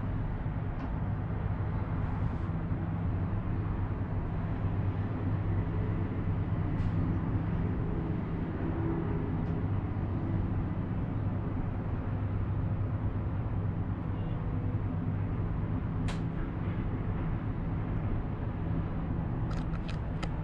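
Steady low hum and rumble heard inside a moving cable car gondola, with a few light clicks about sixteen seconds in and again near the end.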